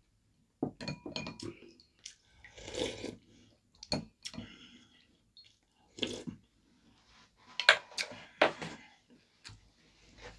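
Eating at a table: chewing, with chopsticks and spoons clicking against ceramic bowls and plates in scattered short clicks; the sharpest click comes about three-quarters of the way through.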